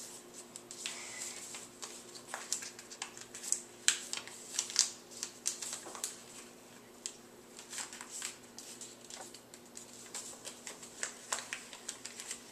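White computer paper crinkling and creasing by hand as the corners of a small square are folded in and pressed flat, in many short, crisp, irregular sounds.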